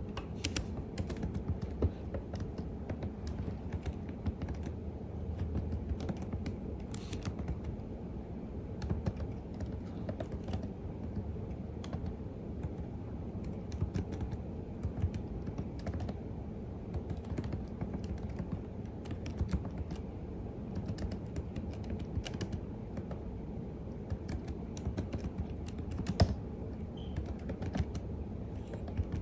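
Continuous typing on a computer keyboard: a steady, irregular patter of key clicks with a few heavier strokes standing out, the loudest about 26 seconds in, over a low steady background hum.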